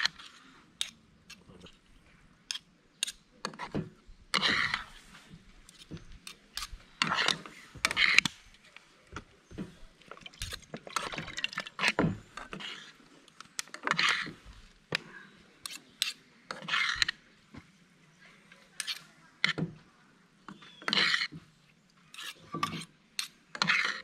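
Metal ladle scraping and clinking against a cooking pan while noodles are stirred, in irregular bursts of scrapes and sharp knocks.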